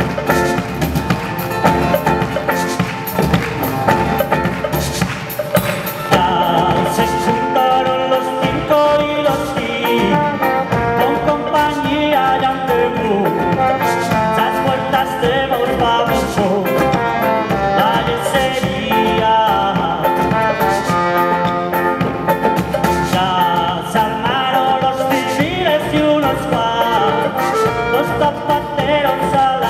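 A live folk band plays an instrumental passage: strummed acoustic and electric guitars over a steady percussion beat. About six seconds in, wind instruments, trombone and a woodwind, come in carrying the melody.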